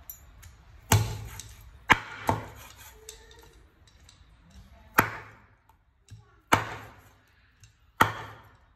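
Steel cleaver chopping leaves on a wooden cutting board: six sharp chops, spaced irregularly about a second or more apart, each dying away quickly.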